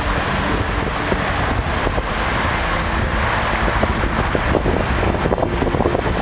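Strong wind buffeting the microphone, a steady loud rumble, over the rush of rough sea surf breaking on rocks.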